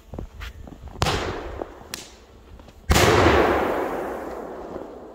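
Large ball-shaped firecracker (a 'quadroboom') going off at a distance: a sharp bang about a second in, a short crack near two seconds, then the loud main blast near three seconds, its echo dying away over about two seconds.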